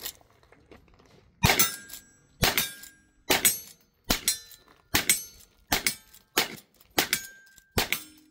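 Lever-action rifle fired nine times at a steady pace of about one shot a second, getting a little quicker toward the end. Each shot is followed by a brief metallic ring from a hit steel target.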